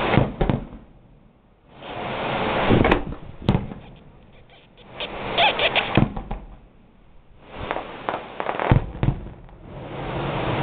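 Fireworks going off: repeated swells of rushing hiss, each ending in sharp bangs and crackling, every two to three seconds.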